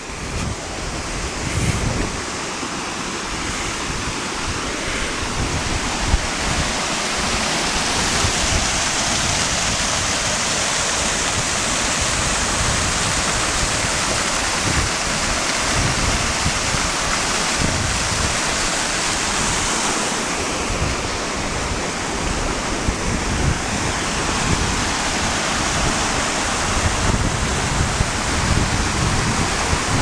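Small waterfall rushing steadily over a rock ledge at a modest flow, growing louder over the first several seconds as it is approached. Wind rumbles on the microphone underneath.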